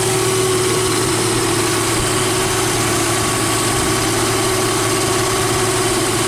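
Jeep Wrangler YJ engine idling steadily with its belt-driven onboard air compressor engaged, pumping up air pressure.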